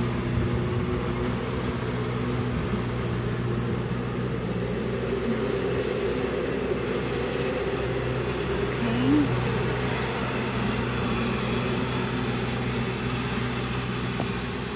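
A steady low mechanical hum and rumble that keeps an even level throughout, with a brief rising-and-falling tone about nine seconds in.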